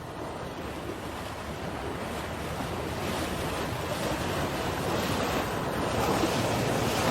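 Steady rushing of moving floodwater, growing gradually louder.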